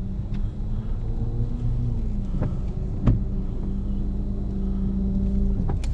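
Car engine and road rumble heard from inside the cabin while driving, with a steady hum that drops away just before the end and a couple of faint clicks.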